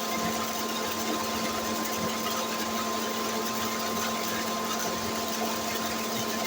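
A small motor running steadily with an even hum that holds one unchanging pitch throughout.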